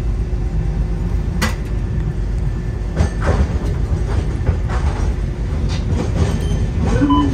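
Nagasaki Electric Tramway streetcar: a steady low rumble with scattered clicks and clunks, the sharpest a single click about a second and a half in and a cluster of knocks about three seconds in.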